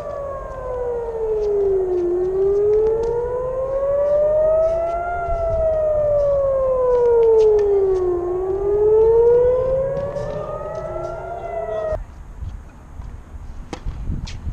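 A siren wailing, its pitch sliding slowly down and back up in long cycles with several overtones, then cutting off abruptly about twelve seconds in. Near the end a tennis racket strikes the ball with a sharp hit.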